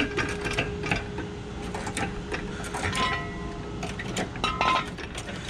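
Hydraulic floor jack being pumped to lift a car, with a run of irregular mechanical clicks and knocks, then a metal jack stand clinking as it is set in place near the end.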